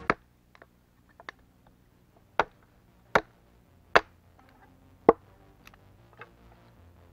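Sharp chopping blows into wood, five main strikes at uneven spacing with lighter knocks and clicks between.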